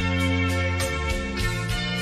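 Instrumental break in a song: backing music with a steady beat and held bass notes, without singing.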